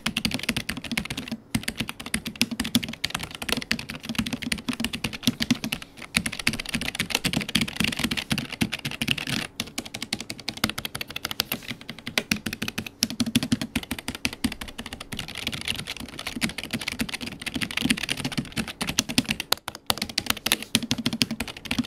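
Typing on a Keychron K7 low-profile mechanical keyboard fitted with tactile Gateron brown switches: a rapid, continuous stream of key clicks, broken by a few brief pauses.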